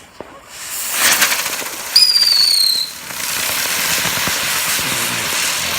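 A spinning consumer firework burning with a loud spraying hiss, with a shrill whistle about two seconds in that dips slightly in pitch, then a steady hiss.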